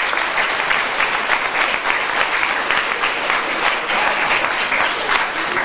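Audience applauding, a steady sustained clapping of many hands.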